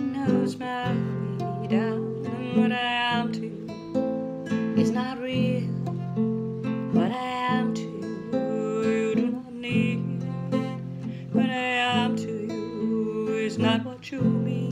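A woman singing to her own acoustic guitar accompaniment, strumming chords that change every two seconds or so.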